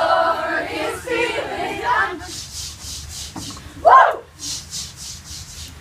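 A group singing a camp song together, then rhythmic breathy hissing, about four pulses a second, with one loud short vocal shout about four seconds in.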